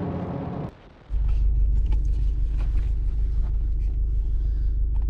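Subaru WRX on the highway: road and wind noise outside the moving car, cut off suddenly under a second in. After a short gap comes a steady low rumble of the car heard from inside the cabin.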